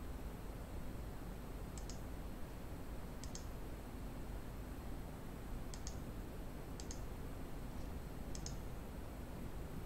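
Computer mouse clicking five times, a second or two apart, each click a quick double tick, over a steady low room hum.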